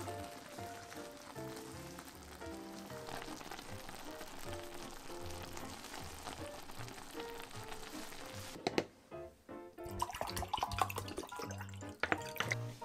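Background music throughout, over the sizzle and bubbling of a chicken-and-vegetable tomato stew simmering in a frying pan. The sizzle stops about two-thirds of the way through, and several sharp clicks and knocks follow.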